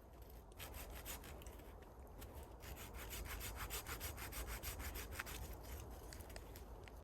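Wood being sawn by hand in quick, even back-and-forth strokes, about four or five a second, starting about half a second in.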